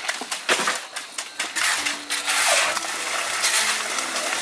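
Metal shovels and trowels clinking and scraping in wet concrete. Sharp clicks come in the first second and a half, followed by a longer scraping rasp.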